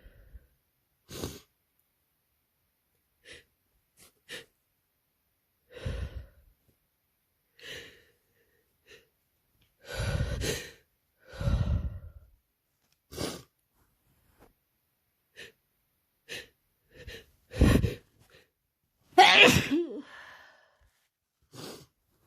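A person with a head cold sneezing again and again, with short breaths between the sneezes. The sneezes come in an uneven string, and the biggest ones fall near the end.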